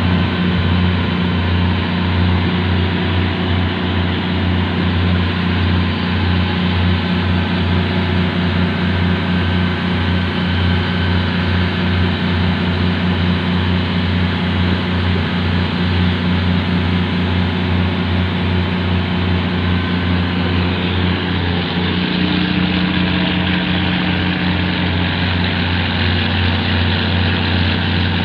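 A fishing boat's engine running steadily at sea: a loud, even, deep drone.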